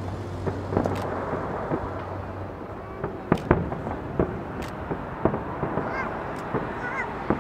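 Aerial firework shells bursting overhead in a string of separate sharp bangs, the loudest about three and a half seconds in. Near the end comes a run of short, high honking calls.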